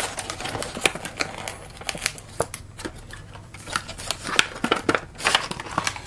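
Cardboard box and packaging being opened and handled by hand: irregular clicks, scrapes and rustles.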